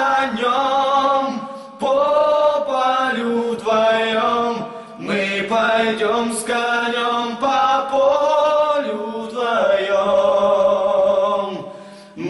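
Young male voices singing a slow Russian song a cappella in close harmony, with a held low note under the melody. The phrases pause briefly about two and five seconds in, and the last phrase fades away near the end.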